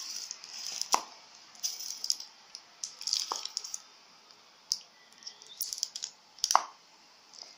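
Plastic glue bottle and paper cut-outs being handled: irregular clicks and crackles, the sharpest about a second in and near the end.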